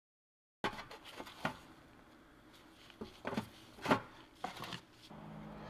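Scattered light clicks and knocks, about eight of them, in a small quiet room, with faint music coming in near the end.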